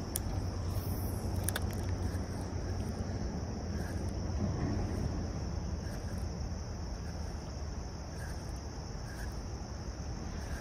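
Steady, unbroken chorus of crickets, over a low, even rush of background noise.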